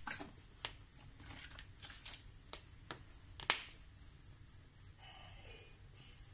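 Firewood crackling in a clay chula (mud stove): irregular sharp pops and snaps, the loudest about three and a half seconds in.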